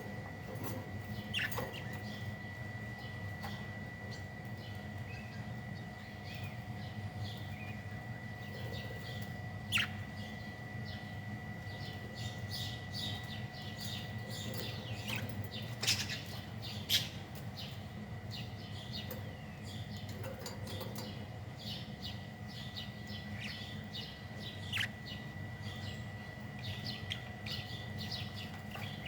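Small birds chirping in quick, scattered calls over a steady electrical hum and a thin high whine, with a few sharper clicks.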